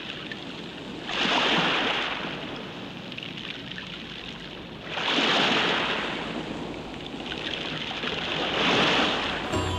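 Sea waves breaking and washing in: three swells of surf, about four seconds apart, over a steady background wash.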